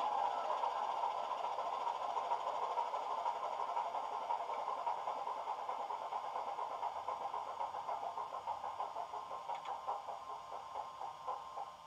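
Heljan Class 25 model locomotive's SWD DCC sound decoder playing the diesel engine through a pair of small onboard speakers: the engine note slowly fades and breaks into separate, slowing beats over the last few seconds, as in a shutdown, then stops near the end.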